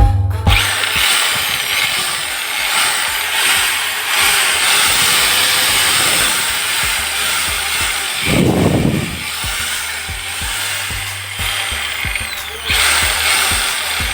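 A small electric motor running steadily, with background music, and a brief louder surge about eight seconds in.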